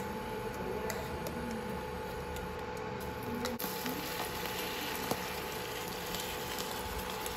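A spoon clicking and scraping as tomato paste is scooped from a can into a hot wok. About three and a half seconds in, liquid is poured in from a bowl and the pan sizzles. A steady hum runs underneath.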